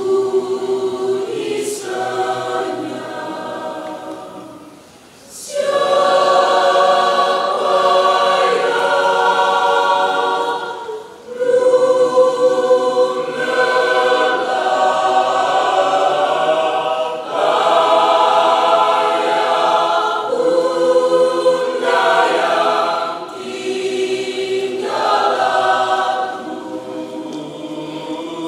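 Mixed adult choir of men and women singing in parts. A softer opening phrase dies away about five seconds in, then the choir comes back louder, with a brief break near eleven seconds.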